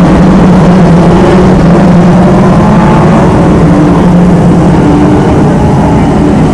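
A pack of small oval-track race cars running together at speed: a loud, steady blend of several engines, their pitches wavering slightly against each other.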